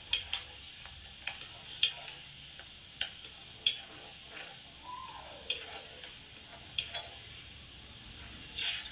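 Dried chickpeas deep-frying in hot oil in a wok, stirred with a perforated skimmer: a faint steady sizzle broken by sharp pops every half second to second as the chickpeas burst.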